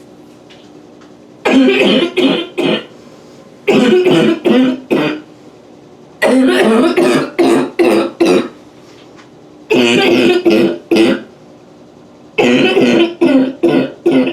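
A woman coughing in a fit: five bouts of several quick, voiced coughs each, with short pauses between them.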